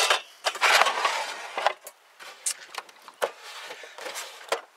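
Stainless saucepan and its glass lid clattering and scraping against other pans in a wooden galley box for about the first second and a half, followed by a few lighter knocks and handling sounds.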